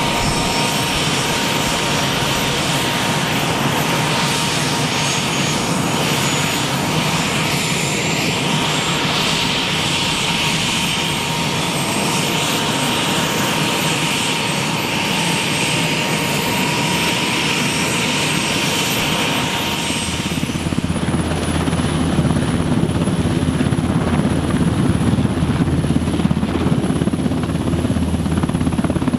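NH90 helicopter's twin turboshaft engines running on the ground as the rotors spin up, with a steady high turbine whine. About twenty seconds in the whine drops away and the low rotor sound grows louder.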